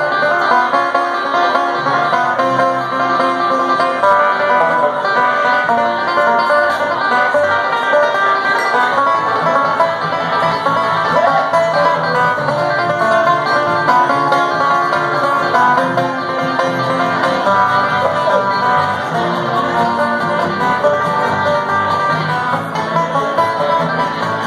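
Bluegrass band playing live: banjo, two acoustic guitars and electric bass guitar, going steadily.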